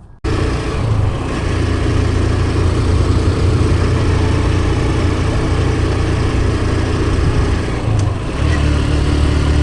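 Motorcycle engine running steadily while riding, with wind rushing across the microphone. The engine note dips briefly about eight seconds in and then picks up again.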